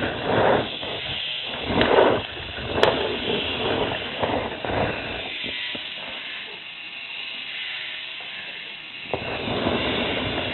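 Motorized K'nex model dinosaur walking: a steady whirring motor with irregular clattering of its plastic gears and legs. The clatter comes in louder surges during the first few seconds and again near the end, with one sharp click a little under three seconds in.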